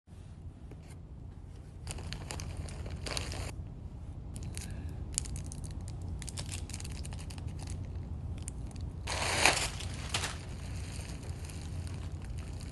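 Packaging crinkling and rustling in irregular spurts as a wig is unpacked, with the loudest crinkling about nine to ten seconds in, over a steady low hum.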